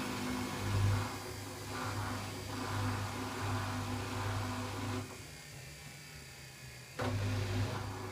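Samsung WF6700 front-loading washing machine's AC brush motor turning the drum, a steady hum that stops about five seconds in and starts again sharply two seconds later: the drum pausing and reversing as it tumbles the laundry.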